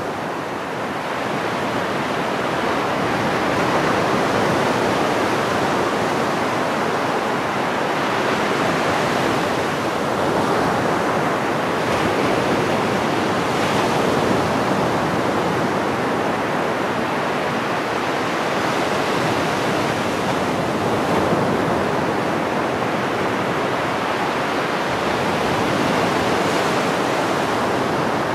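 Ocean surf of small waves breaking and washing up a beach: a continuous rush of water that swells gently every several seconds.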